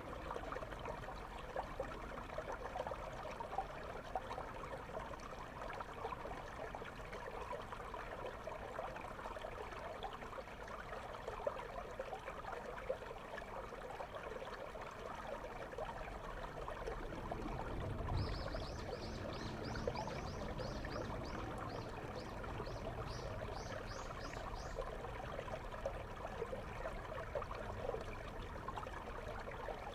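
Shallow river water flowing over stones, heard with the camera under water: a steady rushing, bubbling hiss. About halfway through a low rumble swells up, and a run of quick high ticks, a couple a second, goes on for several seconds.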